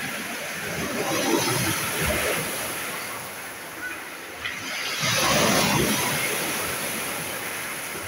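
Small sea waves breaking and washing up over a pebble beach. The surf swells twice, about a second in and again about five seconds in.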